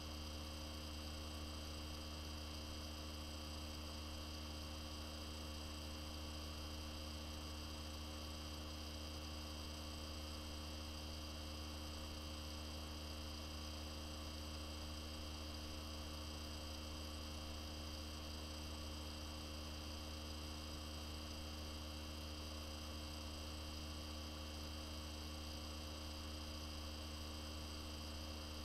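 Steady electrical mains hum: a low, unchanging drone with a few fainter steady higher tones over light hiss.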